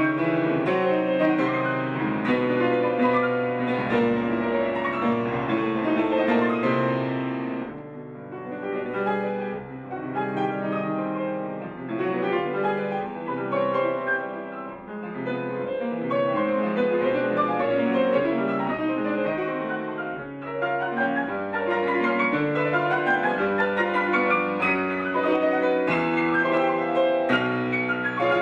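Solo grand piano playing dense, virtuosic classical music, with a softer dip about eight seconds in and quick rising runs in the last third.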